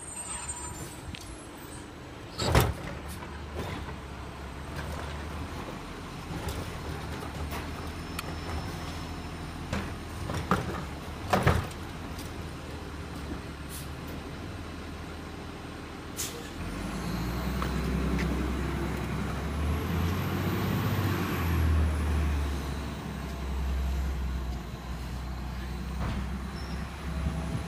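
Garbage truck's diesel engine running steadily, with a few sharp bangs in the first half. About two-thirds of the way in the engine grows louder, with a high whine that rises and falls.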